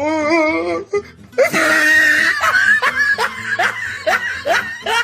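Meme laughter sound effect: a person laughing in a run of short rising "ha" sounds, about three a second, starting with a loud burst about a second and a half in. Before it, a wavering voice is heard briefly.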